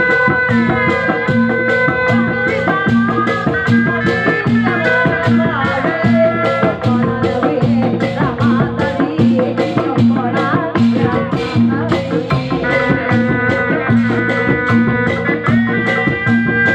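Live Sundanese bangreng music played loudly: a steady, repeating drum beat under sustained melodic notes.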